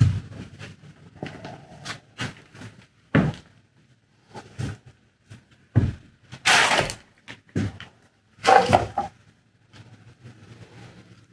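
Footsteps and scattered knocks, thuds and crunches of a person moving through a debris-strewn room, with two longer, louder sounds about six and a half and eight and a half seconds in.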